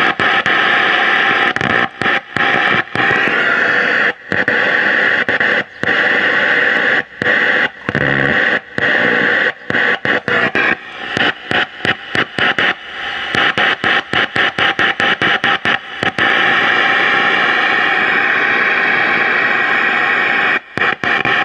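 Loud static hiss from a Philco Predicta television's speaker, cutting out suddenly for a moment many times at irregular intervals.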